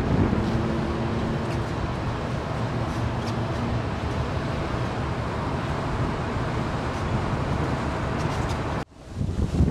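Steady wind noise and low rumble of a ship under way, with a faint hum in the first few seconds. The sound drops out abruptly for a moment near the end.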